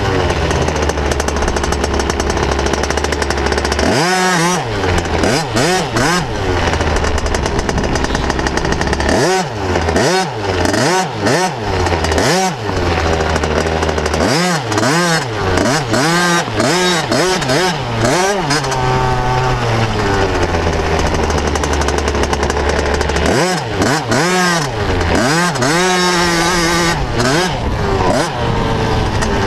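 Motocross bike engine heard from on board, revving up and down over and over as the rider works the throttle round the track, with a few longer stretches held at a steady pitch.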